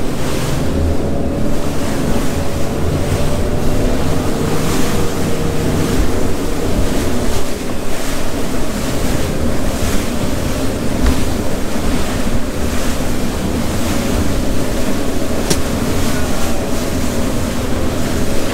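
Outboard-powered center-console boat running at speed through choppy 3-to-5-foot seas: a steady engine drone under the rush of wind on the microphone and the splash of waves and spray against the hull.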